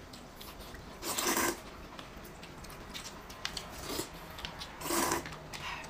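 Rice noodles being slurped with chopsticks: two short noisy slurps, about a second in and near the end, with a few fainter ones between.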